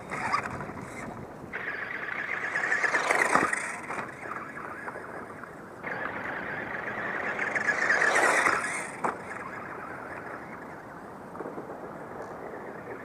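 Radio Shack RC Lightning toy car's small electric motor whining as it drives, in two surges that rise and then fall away, each with a sharp knock near its end.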